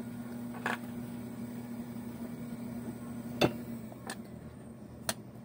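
Steady low electrical hum of workbench equipment, its upper tone stopping about four seconds in, with four short sharp clicks.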